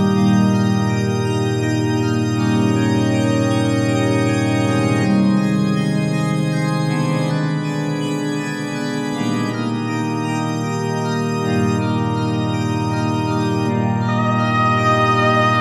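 Slow background music of sustained organ chords, the harmony shifting every two to three seconds.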